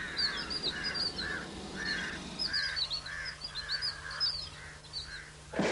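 Birds calling over and over: a steady run of short arched calls, with quick higher chirps above them, over a faint low hum. A sharp knock sounds near the end.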